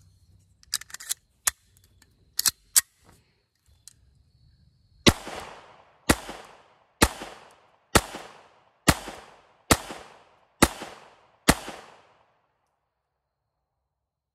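A few sharp metallic clicks as the magazine is seated in a Makarov PM pistol, then eight 9×18mm Makarov shots fired at about one a second, each followed by a short echo. The eighth shot empties the magazine and the slide locks open.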